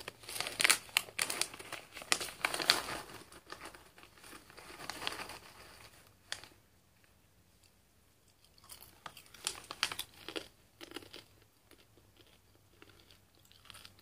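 A snack bag of sea salt popcorn kernels being torn open and crinkled, with dense crackling for about six seconds. After a short pause, crunchy popcorn is chewed, with crisp crunches that thin out toward the end.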